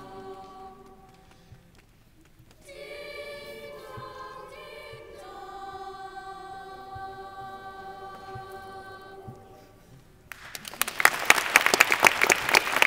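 Children's choir singing carols in a reverberant stone church: a phrase dies away, then a long final chord is held and fades out. About ten seconds in, the audience breaks into loud applause.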